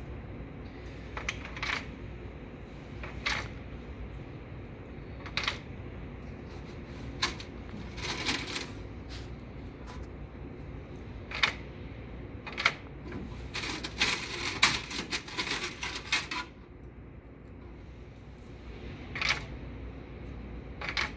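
Quarters dropped one by one into a vending machine's coin mechanism, each landing with a short metallic clink every second or two. About two-thirds of the way through there is a longer run of coins clinking and jingling together.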